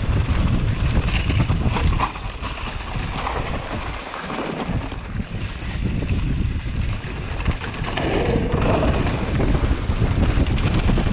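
Wind buffeting the microphone of a downhill mountain bike at speed, with a rough rumble and rattle from the tyres and bike over a rocky trail; it eases off for a couple of seconds early on, then builds again.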